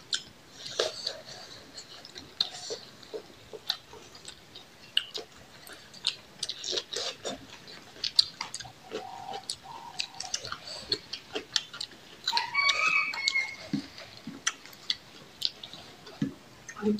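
Chewing and wet mouth smacks of two people eating rice and curry by hand, with many irregular soft clicks.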